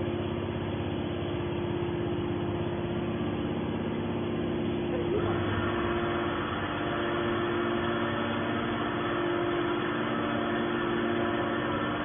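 Hydraulic scrap metal baler running: a steady machine hum with a few held low tones, the sound growing fuller about five seconds in.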